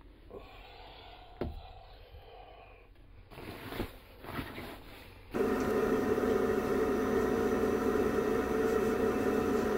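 Faint rustling and a few soft knocks, then about five seconds in a loud, steady fan-like machine hum with several fixed tones starts abruptly and holds.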